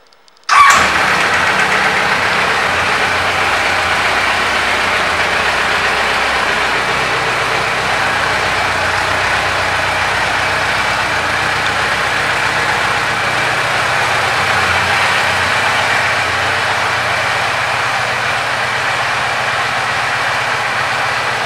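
Kawasaki Concours ZG1000's inline-four engine starting about half a second in, then idling steadily.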